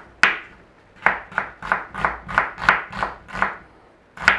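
Chef's knife slicing an onion thinly on a bamboo cutting board. There is one cut, a pause, then a steady run of about eight cuts at roughly three a second, and a last, louder cut near the end.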